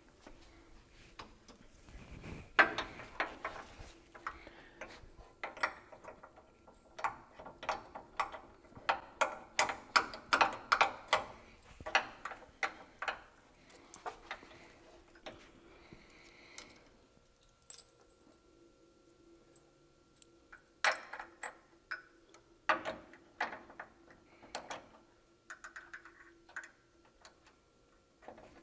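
Irregular metallic clicks and clinks of hand tools and bolt hardware while rear suspension parts are fitted to a truck frame, busiest in the first half, sparse in the middle, and picking up again in a short cluster near the end.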